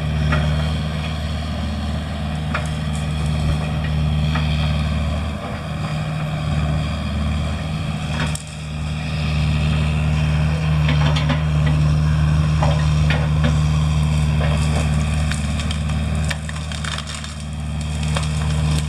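Heavy land-clearing machine running steadily under load while brush and small trees crack and splinter as it knocks them down. The engine eases off briefly twice, about a third of the way in and again near the end.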